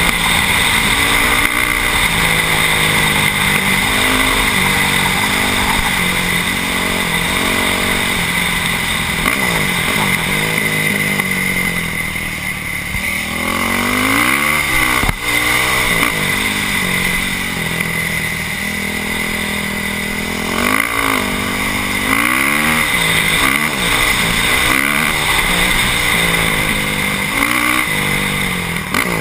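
Dirt bike engine running steadily at speed, then easing off about halfway and revving up and down several times through the second half.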